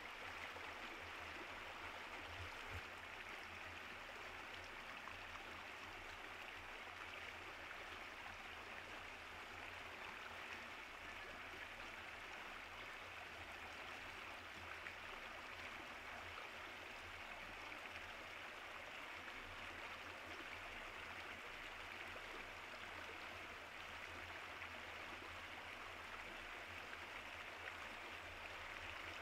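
Faint, steady sound of running water, like a flowing stream, with a low steady hum underneath.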